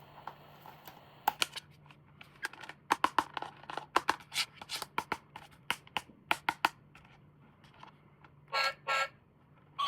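Rapid, sharp clicks and taps of plastic toy parts being handled, then two short electronic toy beeps about a second before the end.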